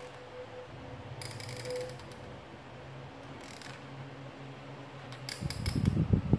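Felt-tip marker strokes scratching and squeaking on paper in short bursts, over a faint steady low hum. Near the end a loud, low rumbling noise comes in.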